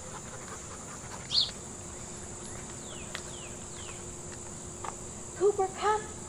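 Insects droning steadily in a continuous high-pitched buzz, with a few short, louder calls near the end.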